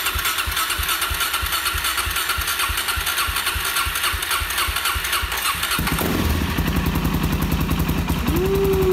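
Suzuki DR-Z400SM single-cylinder engine being cranked on its electric starter, turning over with an even pulse for several seconds while fuel is drawn through after fuel-system work, then catching about six seconds in and running at idle through its Yoshimura exhaust.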